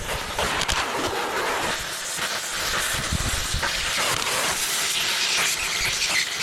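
Compressed air hissing steadily from an air line, as used on a tire machine.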